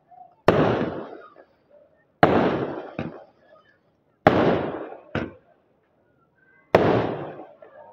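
Aerial fireworks bursting overhead: four loud bangs about two seconds apart. Each bang trails off in a long echo and is followed just under a second later by a smaller, sharper crack.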